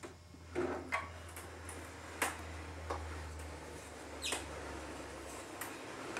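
Handling noise: a few light clicks and one short falling squeak over a low steady hum that stops about five seconds in.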